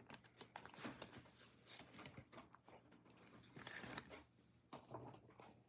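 Faint rustling and clicking of trading cards being handled and flipped through, a quick run of small clicks.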